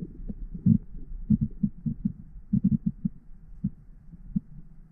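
Muffled low thuds and knocks at irregular spacing, a few each second, with almost nothing higher-pitched above them. This is typical of an action camera's sealed underwater housing during a dive.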